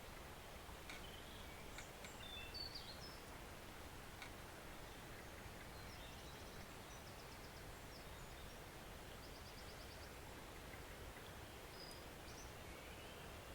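Faint, steady flow of a woodland stream, with small birds calling over it: scattered high chirps in the first few seconds, two short rapid trills around the middle, and a few more calls near the end.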